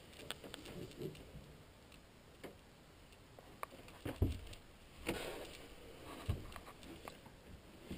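Faint scattered clicks and knocks of someone handling a camera and stepping about a small boat cabin, with two low thumps about four and six seconds in.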